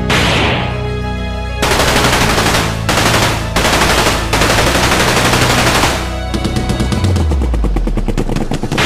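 Automatic gunfire in long bursts, turning into a fast rattle of shots about six seconds in, over dramatic background music with a deep falling tone near the end.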